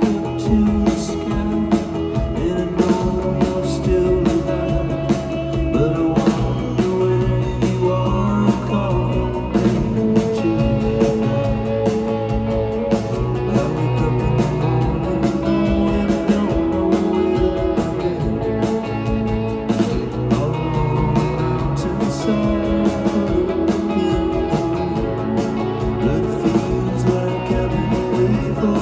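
Live band playing an indie folk-rock song with a steady drum beat, recorded from the audience.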